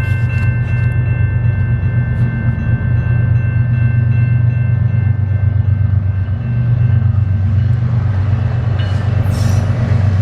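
GE ES44DC diesel-electric locomotive's V12 engine running loud and steady as the freight train passes. Several steady high tones fade away over the first few seconds, with a few sharp clicks near the start and a short hiss about nine seconds in.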